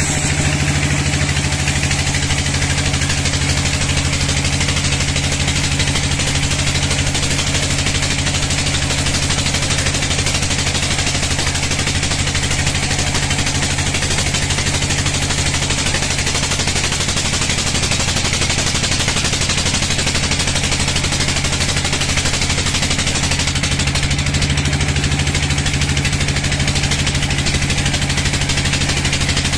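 Sawmill band saw cutting lengthwise through a large log: a loud, steady rasp of the blade in the wood over the even hum of the saw's drive.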